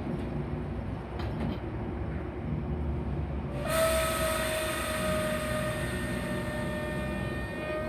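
Metra commuter train rumbling along the rails; about halfway through, a train horn starts sounding one long steady blast that sags slightly in pitch.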